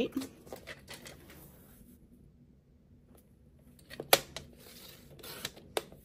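Cardstock being handled on a sliding paper trimmer: scattered light clicks and paper rustling, with a sharp click just after four seconds followed by a soft swishing.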